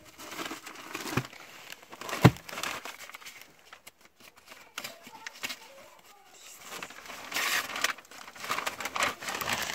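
Thin kite-paper sheets rustling and crinkling as they are lifted and turned over by hand, with one sharp tap about two seconds in. The rustling grows louder and denser near the end.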